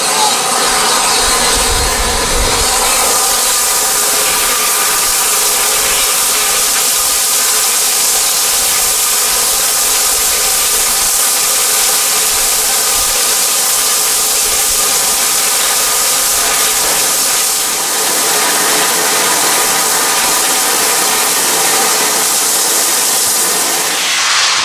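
Rebuilt Bulleid Merchant Navy class steam locomotive 35018 standing still and blowing off steam at its safety valves: a loud, steady hiss with several steady tones mixed in.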